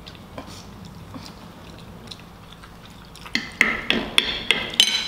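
Close-up eating of chewy noodles: soft chewing and mouth clicks, then from about three seconds in a quick run of loud, sharp wet smacks and slurps.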